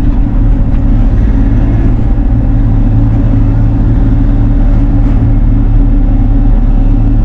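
Bobcat E42 mini excavator's diesel engine running steadily at working speed.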